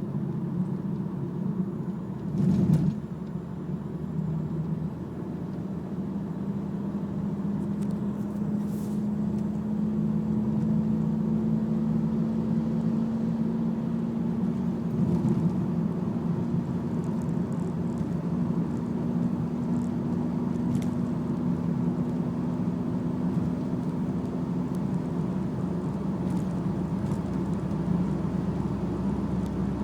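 BMW E46 on the move with a steady low hum holding one pitch, which the owner puts down to a fault in the driveshaft (the long shaft). A brief thump about two and a half seconds in.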